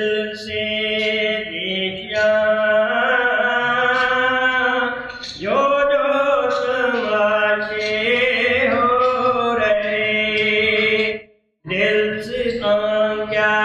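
A singer chanting a devotional hymn verse in long, held, ornamented lines over a steady drone note, with one short break for breath about 11 seconds in.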